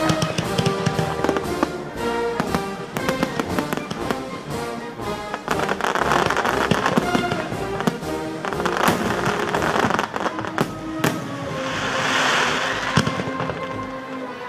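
Fireworks going off in quick succession: many sharp bangs, with three spells of dense crackling about six, nine and twelve seconds in, over music playing throughout.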